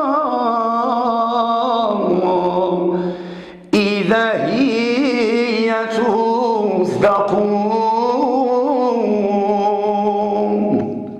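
A man's voice singing an Islamic devotional chant (ibtihal) in long, ornamented melismatic phrases with wavering held notes. It breaks off briefly about three seconds in, resumes, and fades out near the end.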